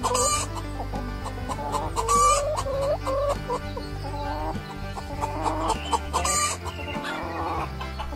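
Hen clucking, a run of short calls that rise in pitch, several in quick succession.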